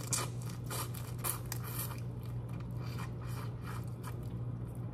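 Close-miked eating of head-on shrimp: irregular crisp clicks and crunches of shell being peeled and chewed, over a steady low hum.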